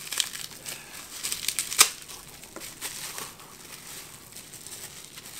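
Plastic bubble wrap crinkling and crackling as it is pulled open by hand, with one sharper snap about two seconds in. The crackling thins out after about three seconds.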